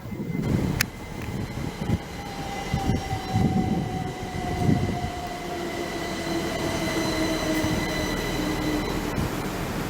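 Passenger train running into the station, its rumble swelling at the start, with a sharp click about a second in and a whine that slowly falls in pitch as the train slows.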